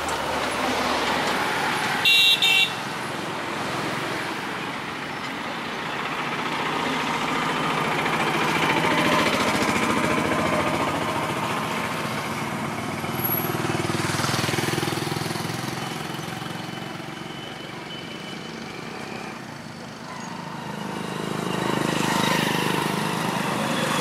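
Passing road traffic, its noise swelling and fading as vehicles go by, with a short vehicle horn toot about two seconds in.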